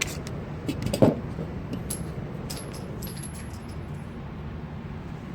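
Scattered light metallic clicks and clinks, like a pistol and its brass or magazine being handled, with one louder knock about a second in and a second burst of clicks near the middle, over a steady low background noise.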